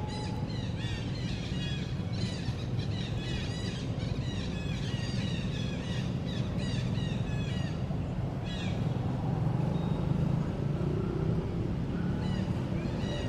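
Birds chirping in quick runs of short repeated notes, over a steady low rumble. The chirping stops about nine seconds in and starts again near the end.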